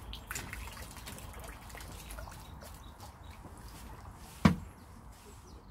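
Water dripping and trickling off a fishing landing net held just above a pond's surface, fading away, then one sharp knock about four and a half seconds in.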